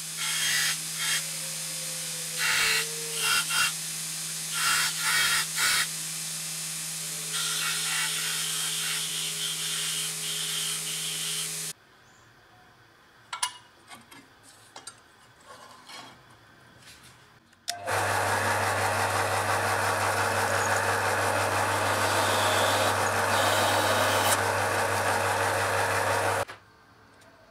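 Belt sander running steadily while a small brass piece is pressed against the belt, grinding in short bursts. After a pause with a few clicks of handling, about two-thirds through, a drill press starts and runs steadily as its bit bores through the brass piece, then stops shortly before the end.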